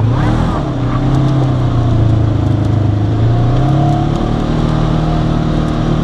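Polaris RZR side-by-side's engine running as the machine drives along a dirt trail, its pitch rising briefly right at the start and shifting again about four seconds in with the throttle.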